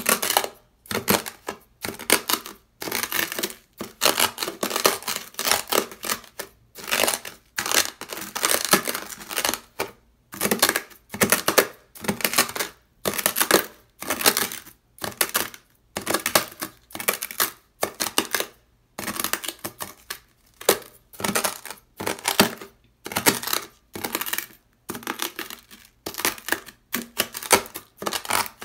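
Dry beach sand crunching loudly as a white ceramic knife blade is dragged through it over sandpaper, in repeated gritty scraping strokes about one a second, with short pauses between them.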